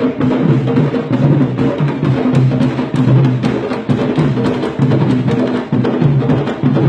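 Candombe comparsa of tambores playing live: a fast, dense rhythm of sharp stick-and-hand strokes over deep, ringing drum tones.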